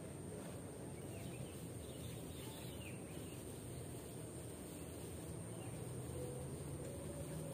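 Steady outdoor background noise, mostly a low rumble, with faint bird chirps now and then.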